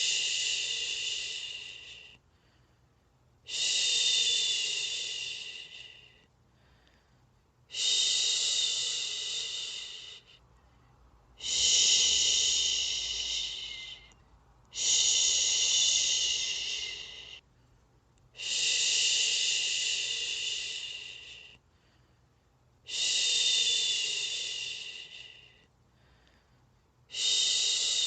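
A person shushing a baby to sleep: long 'shhh' sounds repeated steadily, about one every three to four seconds, each starting strongly and fading out, with short quiet pauses for breath between them.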